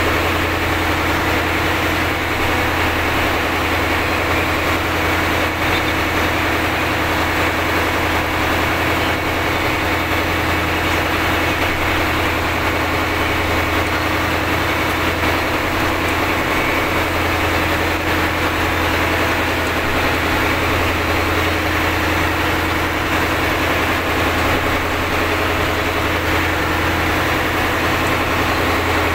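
Engine of a purse seine fishing boat running steadily under load while towing a disabled boat through rough sea, a constant low hum with no change in speed.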